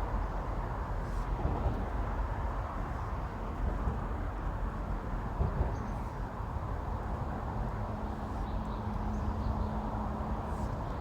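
Steady road-traffic rumble from the bridge overhead, with a vehicle engine's hum joining about halfway through.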